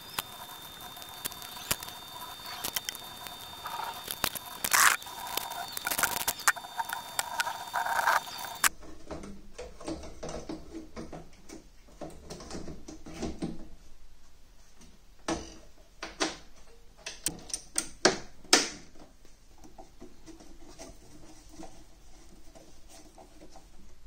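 A cloth rubbing and scraping over glass lens and colour-filter elements. After an abrupt cut come scattered clicks and knocks as metal parts inside a moving-head light fixture are handled.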